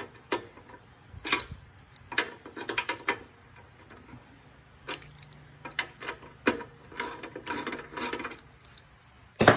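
Socket ratchet wrench clicking in irregular bursts, with a denser run of clicks near the end, as a bolt on a Briggs & Stratton lawn mower engine is worked loose.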